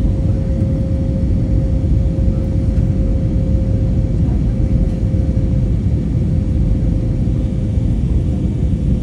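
Airplane cabin noise heard from inside the aircraft: the steady low rumble of engines and airflow, with a steady hum running through it.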